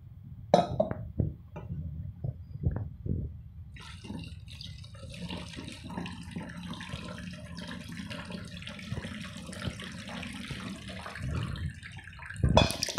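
Water poured from a steel pot into a plastic bottle and splashing into a steel plate as it jets out of holes in the bottle's side. The steady pouring and splashing starts about four seconds in, after a few knocks, and a loud knock comes near the end.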